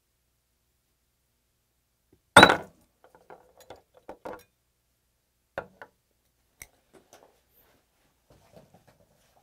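Tableware sounds: one loud knock about two and a half seconds in, then scattered light clicks and clinks of chopsticks against ceramic plates.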